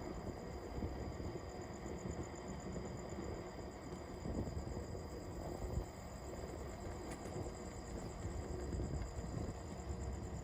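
Low, uneven rumble of wind and tyre noise from riding an electric unicycle, with a steady high-pitched trill running over it.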